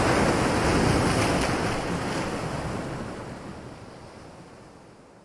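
Whoosh sound effect for an animated title: a rushing noise like wind or surf, loudest at the start, dying away gradually over a few seconds.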